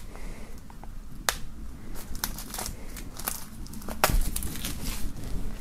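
Plastic shrink-wrap film crinkling and tearing as it is peeled off a cardboard CD sleeve, in scattered sharp crackles, with a light knock about four seconds in.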